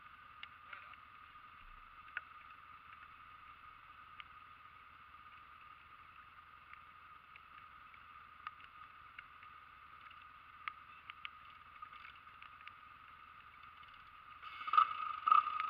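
Quad bike engine running at a distance with a steady whine and a few short clicks, louder with short revs near the end.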